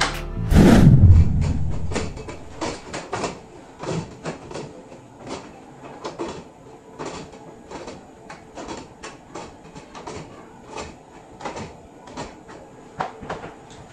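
Interior plantation shutters being opened by hand, their panels and louvers clacking and knocking in a long irregular run of sharp clicks. A heavy thump comes about a second in.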